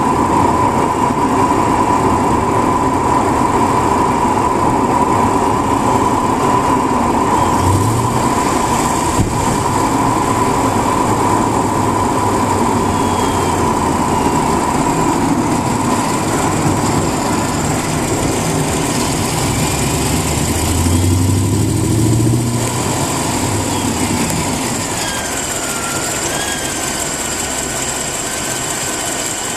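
Mercedes-Benz CLK550's 5.5-litre V8 engine running, with a steady high whine over the engine sound that fades about two-thirds of the way in. This is the weird noise the owner is recording.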